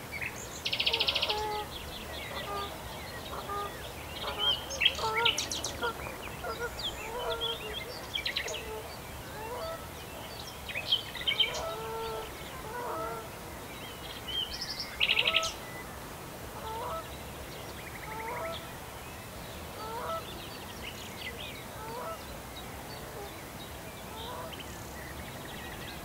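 Geese honking over and over in short calls while songbirds sing around them, with short buzzy trills about a second in and again about halfway through, which are the loudest sounds.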